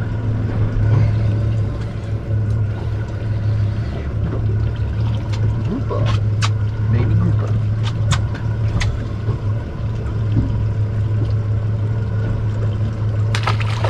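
A steady low hum on a fishing boat, with a few sharp clicks and knocks around the middle while a small fish is reeled to the boat and unhooked by hand.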